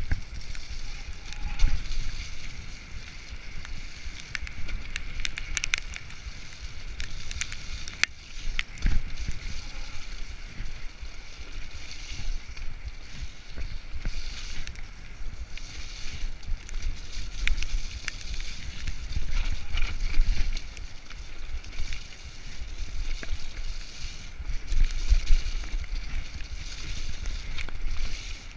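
Mountain bike ridden fast down a dirt singletrack: wind buffeting the camera microphone and tyres rolling over the dirt, with frequent sharp clicks and rattles from the bike jolting over the rough trail.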